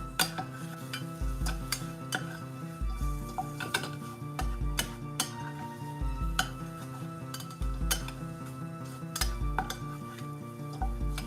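A metal utensil stirring in a cooking pot, with frequent sharp clicks and clinks against the pot. Background music with a low bass note about every second and a half plays throughout.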